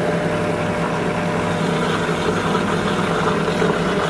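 Vitamix high-speed blender running steadily at speed, puréeing hot potato, cauliflower and broth: an even whir over a constant hum.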